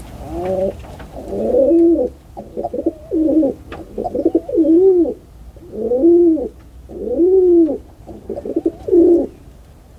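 Pigeons cooing: about seven low, rising-and-falling coos roughly a second apart, some broken into a quick rolling flutter.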